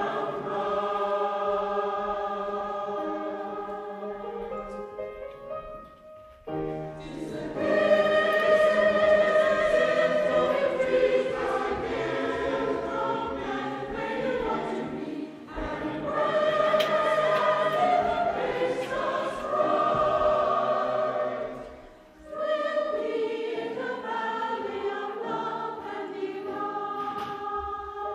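Choral music: a choir singing long held notes in slow phrases, with short pauses about six and a half and twenty-two seconds in.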